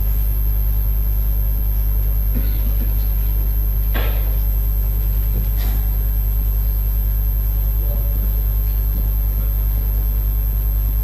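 Steady low electrical hum on the chamber's sound feed, with a few faint knocks and rustles about 2½, 4 and 5½ seconds in.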